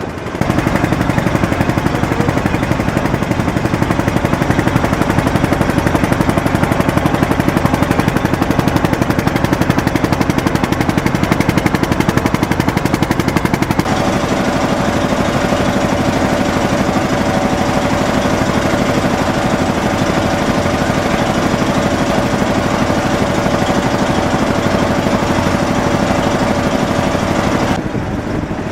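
An engine running with a fast, even pulsing beat. Its pitch steps up about halfway through, as it speeds up.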